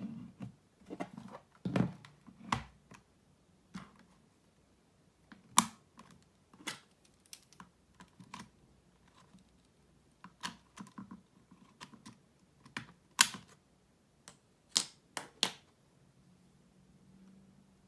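Irregular clicks and taps from handling an HP Mini 1000 netbook while its RAM is being upgraded, with a few sharper knocks about five seconds in and again near the end.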